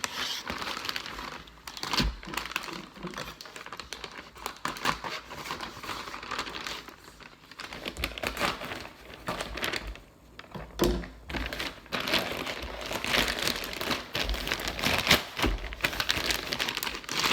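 A shipping package being opened by hand: its packaging crinkling, rustling and tearing in a dense stream of small clicks and scrapes, easing off briefly about ten seconds in.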